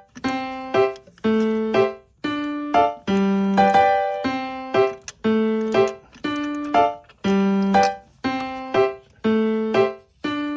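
Background piano music: a slow line of single notes, each struck and fading away, about one a second.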